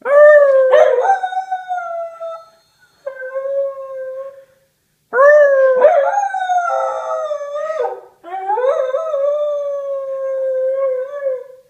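A whippet howling: four long, slightly falling howls, each breaking off suddenly into silence mid-howl before she starts again.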